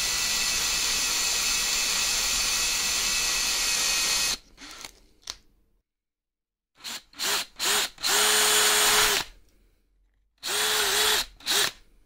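Electric drill boring holes through a plastic body panel: one unbroken run of about four seconds as the bit cuts, then a pause. After that come a few short trigger blips and two runs of about a second each, with a steady motor whine.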